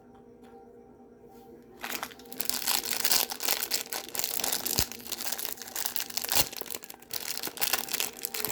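Plastic toy packaging crinkling and tearing as it is unwrapped by hand, starting about two seconds in and going on in irregular bursts to the end.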